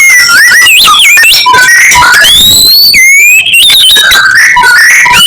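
White-rumped shama singing loudly: a continuous, varied run of clear whistled notes that slide up and down in pitch, mixed with quick rising sweeps.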